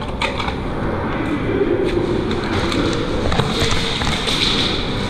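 A few scattered short, sharp knocks and taps over a steady noisy din, spaced irregularly about a second or more apart.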